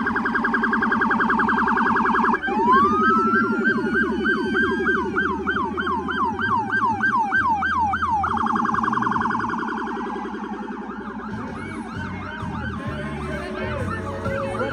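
Electronic police car sirens going as the parade vehicles pass, switching between a very fast warble and a slower yelp of about two or three sweeps a second. The sirens grow fainter in the last few seconds.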